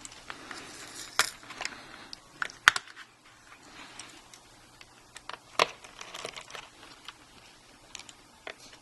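Scattered small clicks and light taps of a screwdriver and hands working inside an opened MacBook Pro, with sharper knocks about a second in, near three seconds and at about five and a half seconds.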